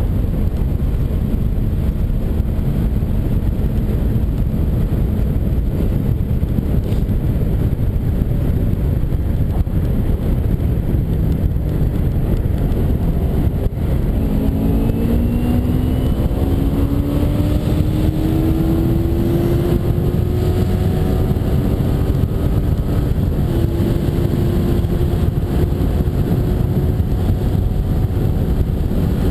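A 2009 Kawasaki Ninja 250R's parallel-twin engine running at road speed under heavy wind rush on the microphone. About halfway through the sound dips briefly, then the engine note climbs steadily as the bike accelerates, stepping up again later.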